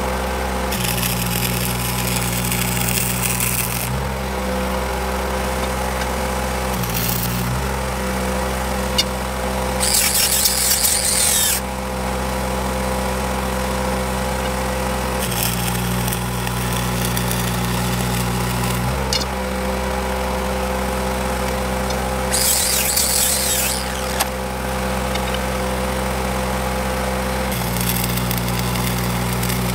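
Short bursts of welding-arc crackle, about six in all, each lasting one to three seconds, as short beads are laid to build up the low tip of a railroad switch point. Under them an engine runs steadily, its hum changing while the arc is burning.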